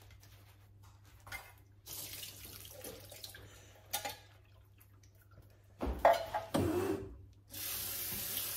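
Kitchen tap water running steadily into a sink from about a second before the end. Before it come a few knocks and a louder clatter, about six seconds in, of things handled at the counter.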